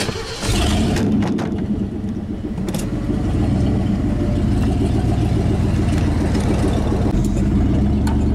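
Gas Ford F-150 pickup engine starting about half a second in, then running steadily and picking up a little as the truck pulls away, heard from inside the cab.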